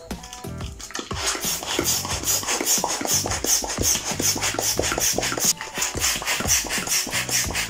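Hand balloon pump worked rapidly, pushing air into a bubble balloon. It makes a quick, even run of rasping air strokes, several a second, starting about a second in.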